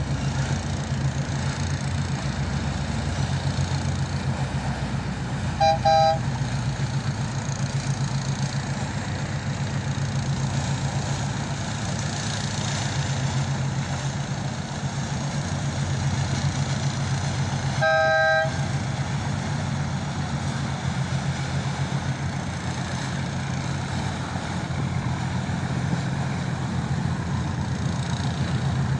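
Steady low engine drone, with two short two-tone horn toots, one about six seconds in and one about eighteen seconds in.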